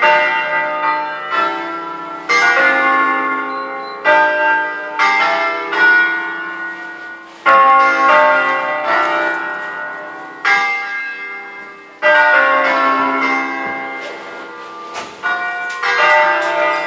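Peal of eight church bells in D-flat, cast by L. D'Adda in 1954, rung as a Bergamasque-style concerto: the bells are struck in quick melodic runs, each run ringing out and dying away before the next begins every two to three seconds. Heard through a phone from inside the sacristy.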